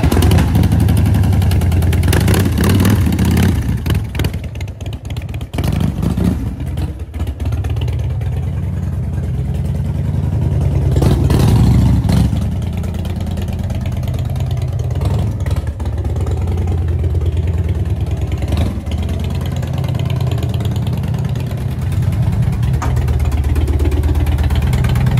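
Harley-Davidson Dyna's air-cooled V-twin on a Vance & Hines exhaust firing up and running with a deep, loud exhaust note, revved up briefly a couple of times as it is ridden slowly along.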